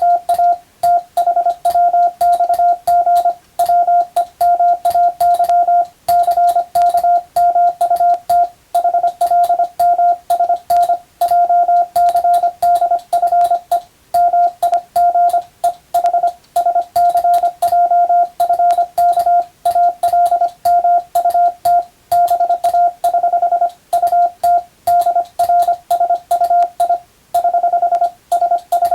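Morse code as a single steady mid-pitched tone keyed on and off quickly in dot-dash groups with short gaps between them, practice sending of English-text telegrams. A light click marks each on and off.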